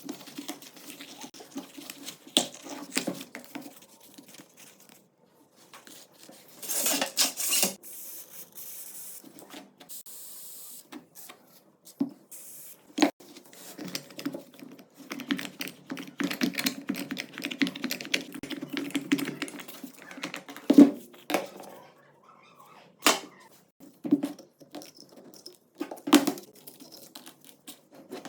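Small metal parts and hand tools clicking, tapping and rattling as an old shotgun is worked on, with a few sharper knocks and a brief steady hiss about eight seconds in.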